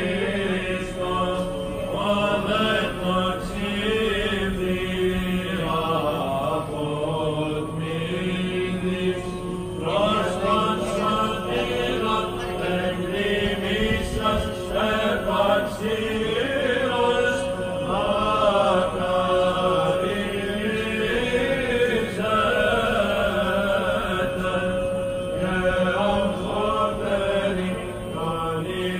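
Greek Orthodox Byzantine chant: melismatic vocal lines sung over a long-held drone note (ison).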